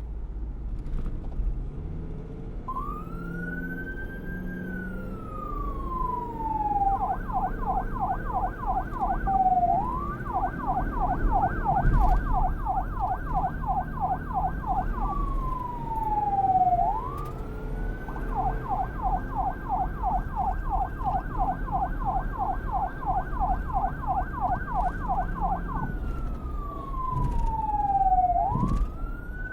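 Electronic police car siren switching between a slow wail and a fast yelp. It first wails, rising and then falling slowly, then warbles quickly at about four cycles a second, wails again, yelps again, and starts a new wail near the end. A low rumble runs underneath.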